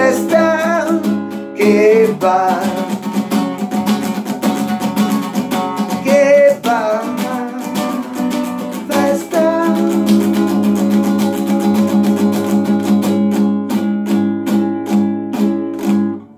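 Nylon-string classical guitar strummed in a fast, steady rhythm, with a man singing short phrases over it in the first half. The strumming stops suddenly near the end.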